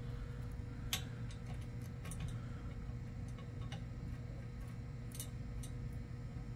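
Faint, irregular light clicks, about one or two a second, of a hand tool and small screws being worked as a replacement door latch is fastened, over a steady low hum.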